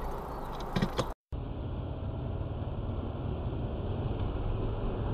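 Steady engine and tyre noise of a moving car, heard from inside the cabin through a dashcam microphone. It follows a brief cut to silence about a second in, before which there is street noise with a few short knocks.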